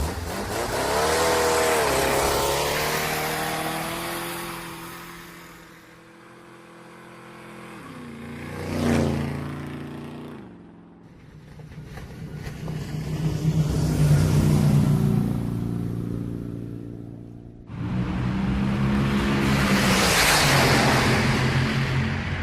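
Motor vehicle engine sounds spliced together: an engine runs up in pitch and fades away, a brief loud pass with falling pitch comes about nine seconds in, and after a sudden cut a loud engine run fills the last few seconds.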